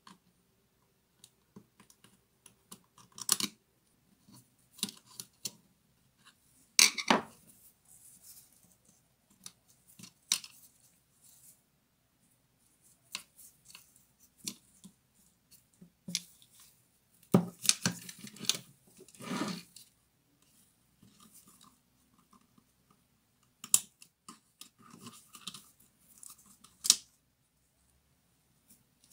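Scattered small clicks, taps and scrapes of a screwdriver and gloved fingers working plastic and metal parts of the switch assembly inside an opened Bosch GWS 7-125 angle grinder's housing. The sounds come at irregular moments, with the loudest clatter about seven seconds in and a longer rattling scrape around two thirds of the way through.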